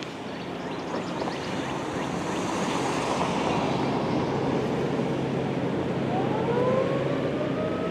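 Construction machinery noise with a low hum, then about six seconds in Federal Signal 2001-series outdoor warning sirens begin winding up, two tones rising steadily in pitch as the rotors come up to speed.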